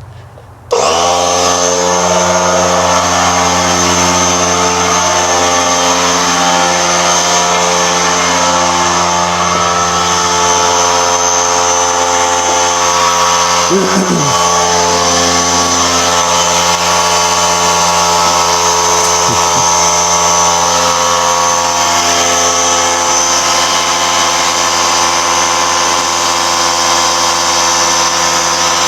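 Small electric motor starting up about a second in, then running steadily at an even pitch.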